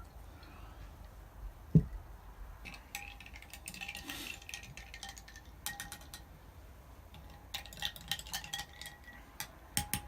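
Glass and ice clinking with scattered light clicks and taps as gin is poured and mixed into drinks. A single dull thump about two seconds in is the loudest sound.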